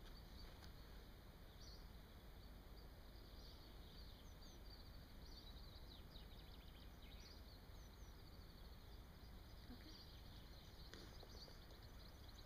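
Near silence: faint outdoor background with small birds chirping now and then in the distance.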